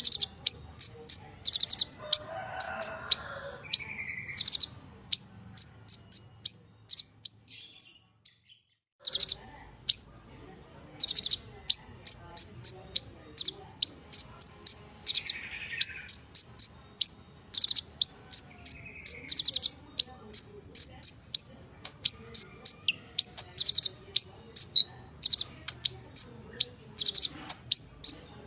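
Purple-throated sunbird (kolibri ninja) singing a fast run of short, sharp, very high chirping notes in harsh rapid series, breaking off briefly about eight seconds in.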